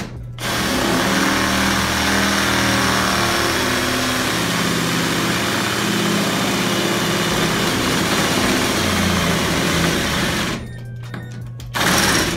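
Cordless drill boring a mounting hole through a vending machine's front panel. It runs steadily for about ten seconds with its pitch wavering under load, then gives a second short burst near the end.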